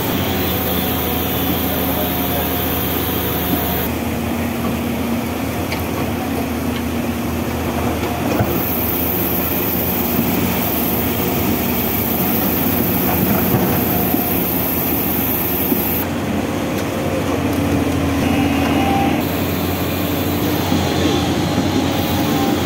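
Excavators' diesel engines running steadily under load, a continuous low mechanical drone.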